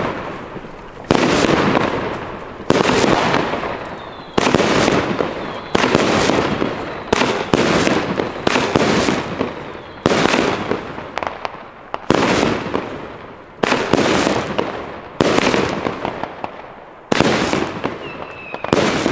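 A 13-shot firework battery firing its shots one by one, about one every one and a half to two seconds, for about a dozen shots. Each shot is a sudden launch bang followed by a fading hiss as the comet tail rises and breaks.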